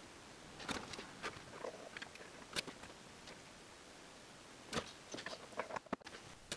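Scattered small clicks and taps of hands working wires, solder and a soldering iron on a workbench, in clusters with short quiet gaps between them.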